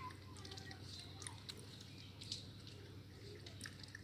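A puppy lapping water from a plastic container: faint, irregular wet clicks and small splashes.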